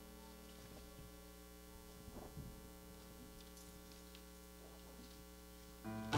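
Steady electrical mains hum from the amplified sound system, with a few faint taps; just before the end the level rises briefly.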